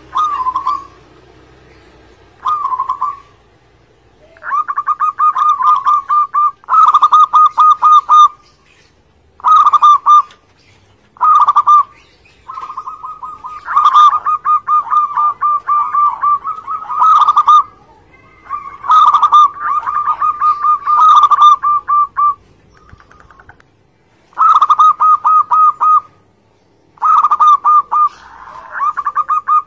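Zebra dove (perkutut) singing: phrase after phrase of fast, rippling coos, each lasting one to several seconds, with short pauses between.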